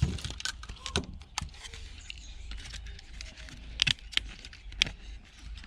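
Irregular clicks and clacks of small circuit boards and plastic parts being handled and tugged at while dismantling an alarm clock, with a few sharper knocks.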